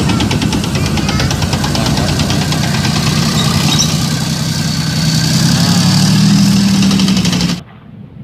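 Tank engine sound effect: a heavy engine idling with a fast, even knock. It grows a little louder around six seconds in and cuts off suddenly near the end.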